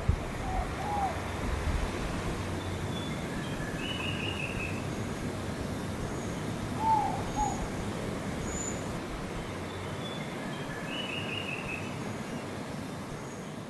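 Forest ambience of several birds calling over a steady background hiss. A low two-note hooting call comes about every seven seconds, a quick run of about five high chirps comes twice, and there are faint thin whistles higher still.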